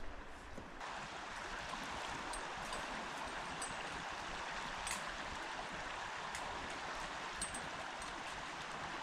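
Steady rushing of a stream's flowing water, which sets in just under a second in, with a few faint light clicks over it.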